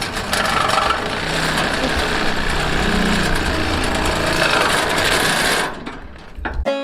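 Power tool running steadily as it works the old door gaskets off a steel shipping container, cutting out about five and a half seconds in.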